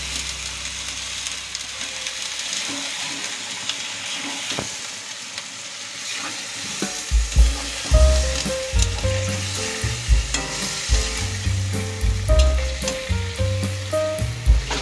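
Pieces of duck meat sizzling as they fry in hot oil and spice paste in a wok. From about halfway through, a spatula scrapes and knocks against the pan as the meat is stirred.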